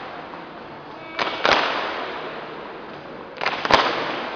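A drill team's sharp unison hits from stomping or slapping in the routine, twice about two seconds apart. Each time a lighter hit is followed a third of a second later by a louder one, echoing in a large hall.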